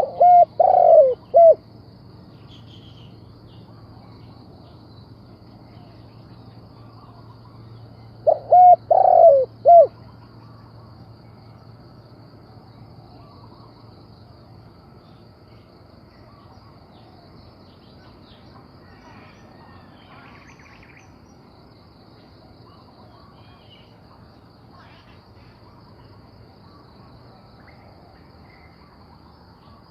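Spotted dove cooing: two short phrases of about four notes each, the second about eight seconds after the first.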